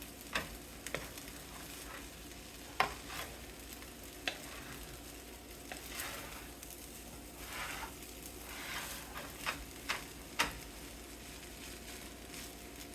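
Fried rice sizzling in a hot pan while a utensil stirs it, with scattered sharp clicks and scrapes of the utensil against the pan.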